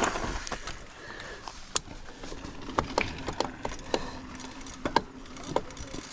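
Scattered light clicks and knocks of hands working on a mountain bike's crank and pedal area, one sharper knock at the start, with a faint steady hum in the middle.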